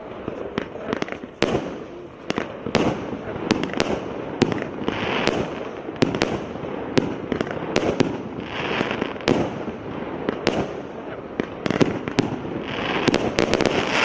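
A 36-shot firework cake (0.8-inch calibre) firing its shots in quick succession: a string of sharp bangs, one or two a second and sometimes several close together, over a continuous crackle and hiss of bursting stars.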